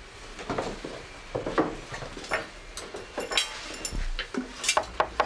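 Scattered knocks and clinks of hard objects being handled, a few with a short metallic ring.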